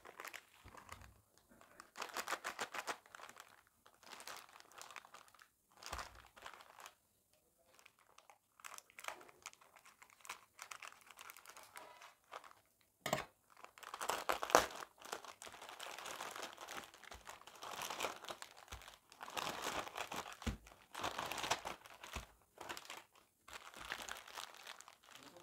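Plastic biscuit-packet wrapper crinkling in short bursts as it is handled, with a sharp snap about halfway through as it is torn open. This is followed by louder, denser rustling of the plastic and the foil inner packs as they are pulled out and laid down.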